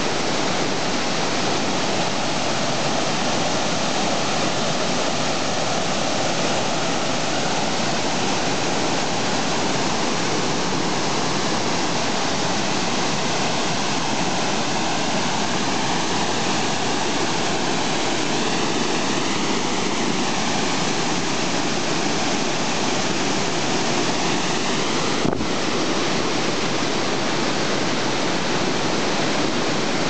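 Steady rush of water pouring over a low concrete dam spillway into the pool below, with one brief click near the end.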